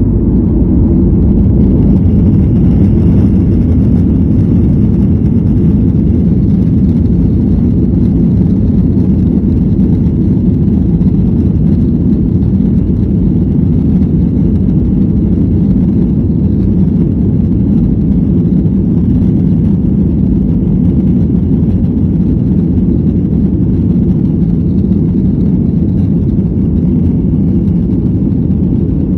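Boeing 737 jet engines and airframe heard from inside the passenger cabin as the plane rolls along the runway for takeoff: a loud, steady, deep rumble that holds even throughout.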